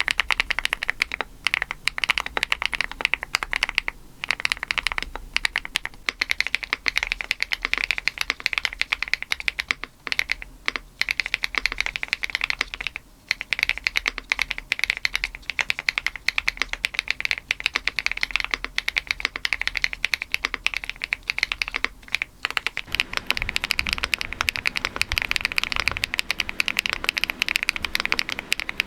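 Fast, continuous typing on a Rainy 75 mechanical keyboard with a PP plate, its HMX linear switches clacking densely. The switches change from HMX Cloud to HMX Violet about five seconds in, then to HMX Duck Duck near the end, where the keystrokes take on a deeper sound.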